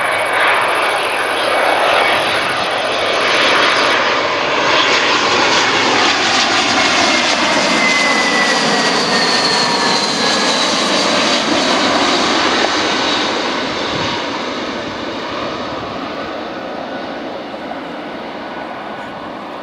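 Airbus A320's IAE V2500 turbofans at approach power as the airliner passes low overhead on final approach: a loud rushing roar with an engine whine that drops in pitch as it goes by, then fading as the aircraft moves away toward the runway.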